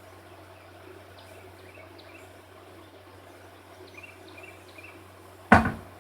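Quiet outdoor background with a steady low hum and faint bird or insect chirps, then one loud sharp clunk about five and a half seconds in that dies away quickly, from the work on the car's wheel.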